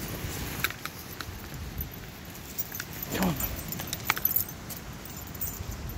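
Footsteps on a stony dirt trail with light metallic jingling and small clicks, and a brief falling whine about three seconds in.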